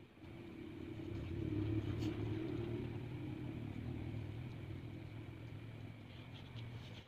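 Low engine rumble of a passing road vehicle, swelling over the first two seconds and then slowly fading away.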